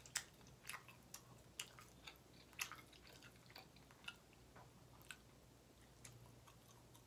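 Quiet, close-up chewing of honey-glazed grilled kabob meat: soft wet mouth clicks and smacks, one or two a second, thinning out toward the end, over a faint steady low hum.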